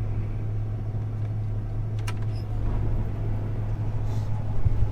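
Combine harvester's engine running with a steady deep drone, with a couple of short clicks and a brief knock near the end.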